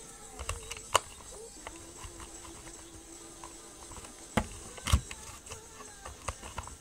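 Sharp clicks and taps of hard acrylic parts of a hidden-blade model being handled, a few scattered through, the loudest about a second in and twice between four and five seconds in, over a faint steady background tone.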